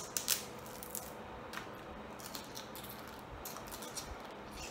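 Boiled small crab and crawfish shells being cracked and picked apart by hand and eaten from: a scattered series of sharp cracks and clicks, several close together in the first half-second.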